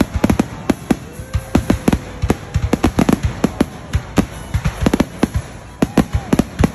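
Fireworks grand finale: aerial shells bursting in rapid, overlapping bangs, several a second.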